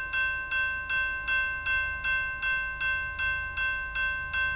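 Railroad grade-crossing warning bell ringing steadily, struck evenly about two and a half times a second with a ringing tone between strikes, as a train approaches the crossing.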